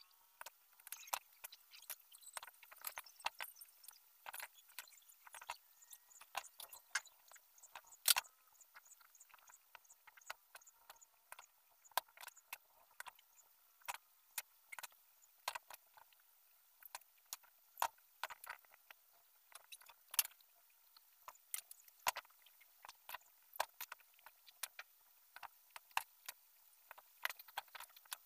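Faint, irregular light clicks and small rattles of bird-cage frame rods being handled while a joint is bound with nylon line.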